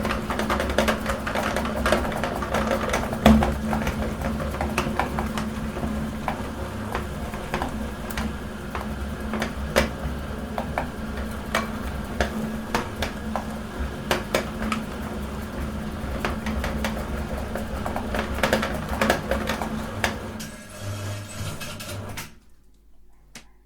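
Meat grinder motor running with a steady hum while soap is forced through it, with constant irregular crackling and clicking as the soap is crushed and extruded. Near the end the crackling thins out and the sound cuts out briefly.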